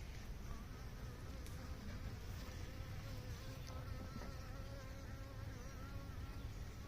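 Honeybees buzzing in flight around an opened hive during a nuc install, a steady buzz whose pitch wavers as the bees move about.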